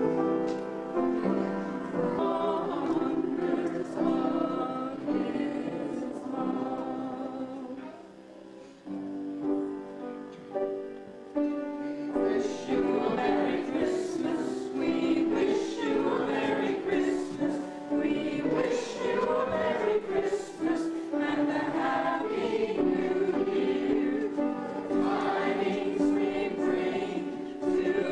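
A choir singing, with a short break about eight seconds in before the singing picks up again.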